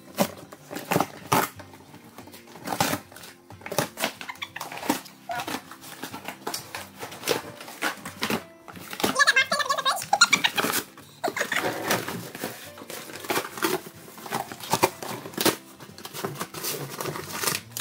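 Dogs, a Siberian husky and an Alaskan malamute, ripping and chewing a cardboard box: irregular tearing and crunching of cardboard, some spells busier than others.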